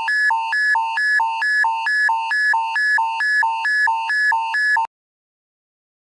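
Custom-made electronic emergency alert alarm: two tones alternating low and high, a bit over twice a second, cutting off suddenly about a second before the end.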